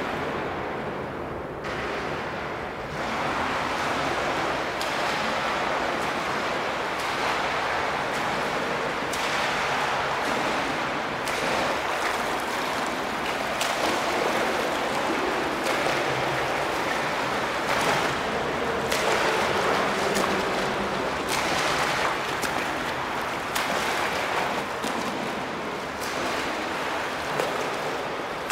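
A swimmer doing front crawl, arms slapping into and pulling through the water, making repeated splashes in a steady stroke rhythm.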